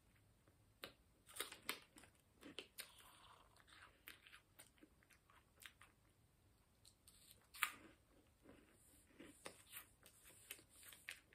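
Quiet crunching and chewing of a crispy Indonesian roasted corn stick snack: scattered small crisp crunches as it is bitten and chewed, the loudest one about seven and a half seconds in.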